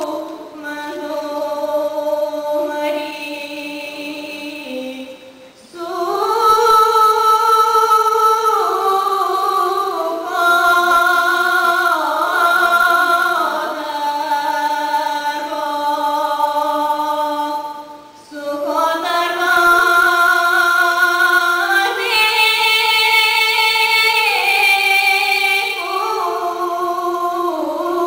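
Bulgarian folk singing with a woman's voice: long held notes that step from pitch to pitch, broken by two short pauses for breath.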